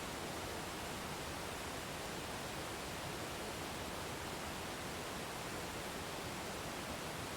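Waterfall: a steady, unbroken rush of falling water, an even hiss that does not change.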